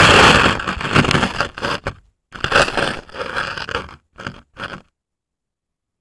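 Handling noise close to the camera's microphone: loud, rough scraping and crunching of the camera on ice. It comes in two long stretches and two short bursts, then stops abruptly about five seconds in.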